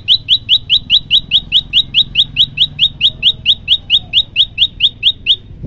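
Male common tailorbird singing a rapid, steady series of loud short rising chip notes, about five a second, which stops just before the end.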